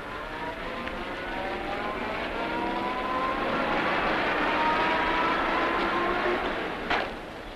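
Motor vehicle engine running, its pitch slowly rising, getting louder toward the middle and then falling away; one sharp knock near the end.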